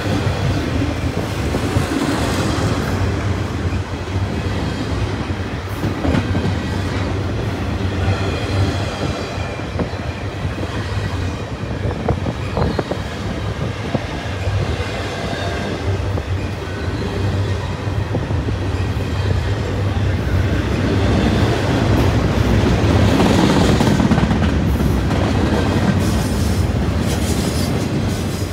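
Double-stack container cars of a CN intermodal freight train rolling past at close range, a steady rumble of steel wheels on the rails that grows somewhat louder about three-quarters of the way through.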